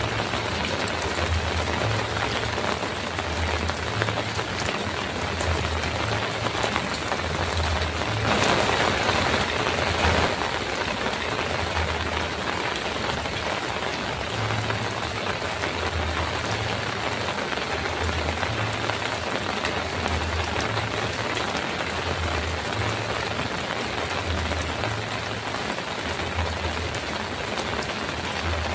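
Heavy rain falling on a metal roof, a steady dense hiss that grows louder for about two seconds around a third of the way in.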